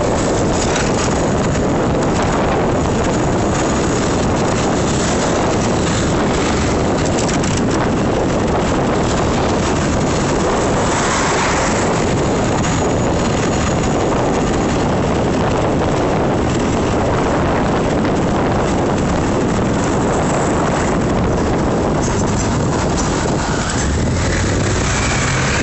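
Wind rushing over the microphone of a moving e-bike, a loud, steady noise mixed with passing road traffic. Near the end a low engine hum comes in from a box truck close ahead.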